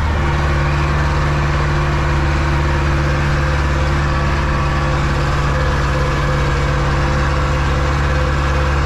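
Zetor 7245 tractor's four-cylinder diesel engine running at steady revs while pulling a wheat trailer, heard from inside the cab.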